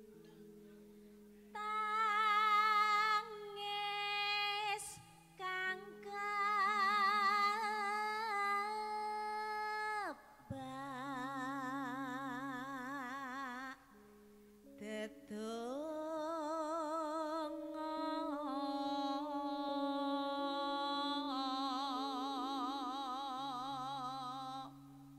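A female Javanese tayub singer sings long melismatic phrases with heavy vibrato, broken by short pauses, over low sustained accompaniment notes that step from pitch to pitch.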